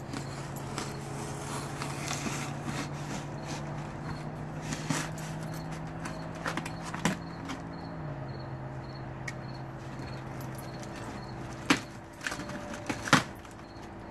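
A long cardboard shipping box being opened by hand: packing tape cut and torn, with scraping and rustling of the cardboard and several sharp knocks as the box and knife are handled, the loudest two near the end. A steady low hum runs underneath and drops slightly in pitch about two-thirds of the way through.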